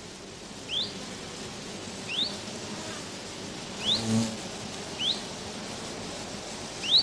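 A bird calling a single short rising note five times, at fairly even intervals of a little over a second, over a steady outdoor background hiss.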